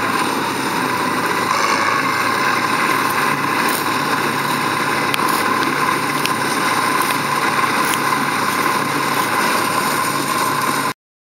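Bizon Z056 combine harvester running in the field as it cuts, a steady engine and machinery drone with a strong hum and a few faint ticks. It cuts off suddenly near the end.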